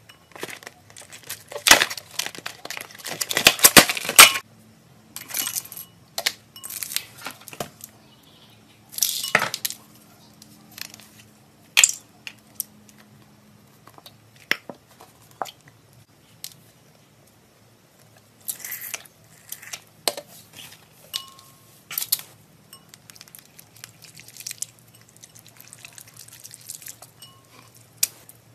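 Plastic packaging crinkling and tearing, loudest in a long burst a couple of seconds in and again around nine seconds, followed by scattered clicks, taps and light clinks against a glass bowl as slime solution is squeezed in and stirred.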